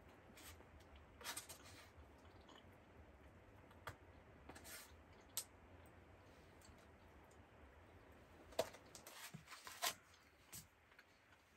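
Faint fork clicks and scrapes on a plate during eating, with a couple of sharper knocks near the end as the plate is set down on the folding plastic table.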